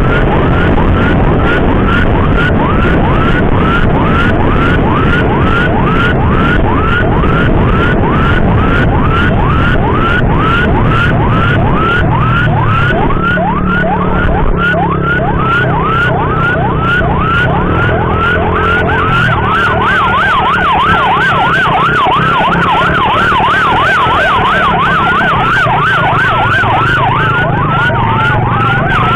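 Electronic emergency siren sounding in repeated rising sweeps, about two a second, switching to a faster yelp about two-thirds of the way through, over steady road and engine noise.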